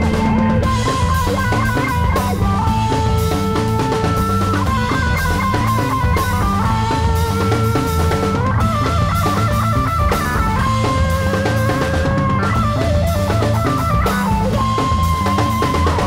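Background music with drums and guitar, a steady beat under a melody of held notes.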